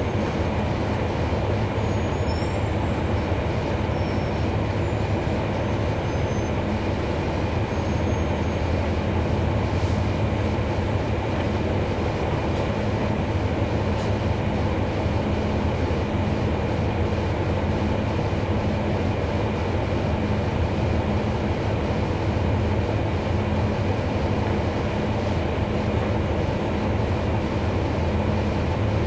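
Inside a 2011 NABI 40-SFW transit bus: its Cummins ISL9 diesel engine runs with a steady low drone over an even cabin rumble, holding level with no change in engine speed.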